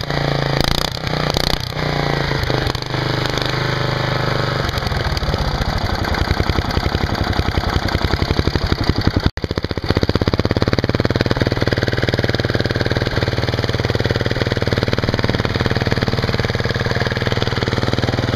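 A homemade lawnmower's 10 hp Briggs engine running through an open exhaust pipe made from a VW Beetle end pipe, with loud, rapid exhaust pulses. The exhaust note gets louder from about four seconds in, cuts out for an instant about nine seconds in, then runs steadily.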